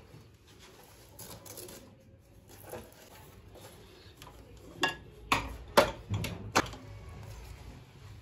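Sharp clicks and knocks as the detachable padded seat of a patient transfer commode chair is handled and fitted onto its frame, a quick run of them about five seconds in, with lighter rustling of the parts before.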